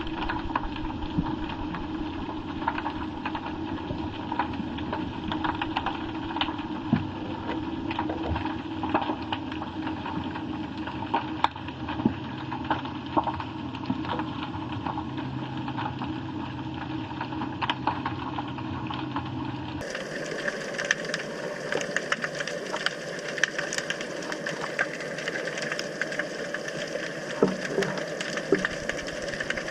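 Underwater sound from a submerged camera: a steady engine-like hum with a constant crackle of small clicks. The hum's pitch and the overall tone change abruptly about two-thirds of the way through.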